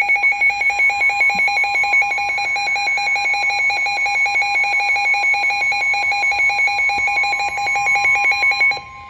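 NOAA Weather Radio warning alert: a loud, rapidly pulsing electronic alarm tone over the steady 1050 Hz warning tone. It signals a severe thunderstorm warning. The pulsing alarm cuts off suddenly near the end, with the steady tone lasting a moment longer.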